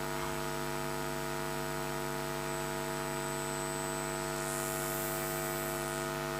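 Steady electrical mains hum and buzz from the sound system, a constant tone with many overtones over faint hiss.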